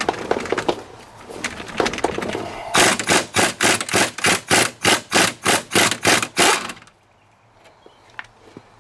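Impact wrench hammering on a front wheel-hub bearing bolt in quick, even pulses, about four a second, for about four seconds, then stopping. It is breaking the bolt loose. A couple of seconds of lighter irregular knocks come before it.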